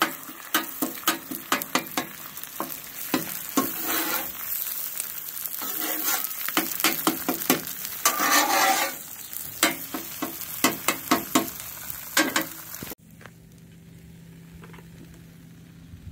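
A metal spatula scrapes and taps quickly on a Blackstone griddle's steel cooktop while scrambling eggs that sizzle in the grease. About 13 seconds in, the sound cuts off suddenly to a quieter stretch with a faint low hum.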